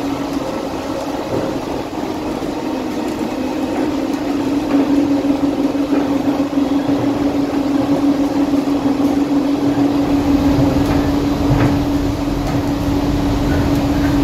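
DFW Skylink automated people mover (Bombardier Innovia APM 200) running along its concrete guideway, heard from inside the car: a steady whine over the rumble of its rubber tyres, the rumble growing heavier about ten seconds in.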